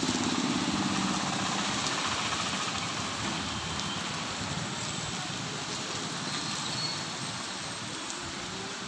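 Road traffic on a wet street: a steady hiss of tyres and engines, with a low engine hum that fades out in the first two seconds.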